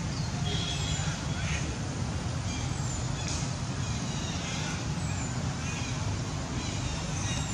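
Short high animal calls, one every second or so, over a steady low rumble.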